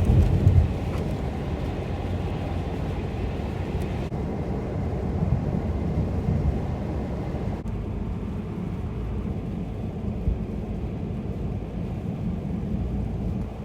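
Steady low rumble of vehicles driving on a highway, with a louder swell right at the start.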